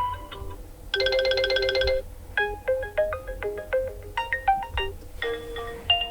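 A preinstalled OPPO A38 ringtone playing: a quick melody of short chime-like notes, with a fuller held chord about a second in.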